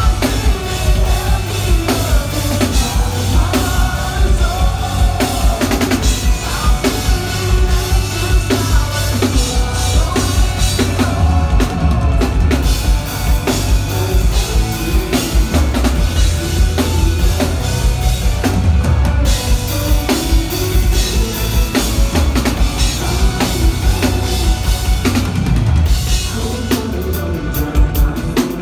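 Rock band playing live, with the drum kit and bass drum prominent over the guitars, as picked up by a phone's microphone in the audience.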